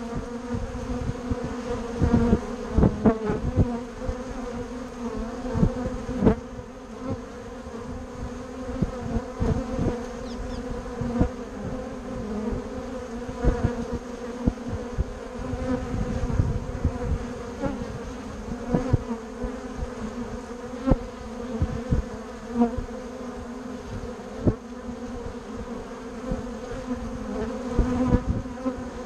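Honeybees crowding a wooden hive entrance, buzzing close by with a steady, pitched hum. Frequent irregular low thumps stand out above the buzz.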